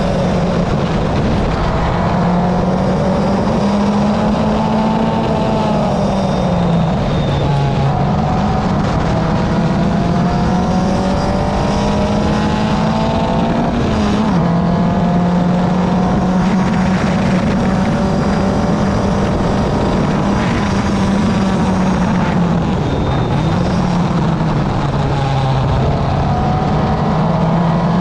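Car engine running steadily under way, its note slowly rising and then dropping back several times, with a fainter higher whine that climbs along with it.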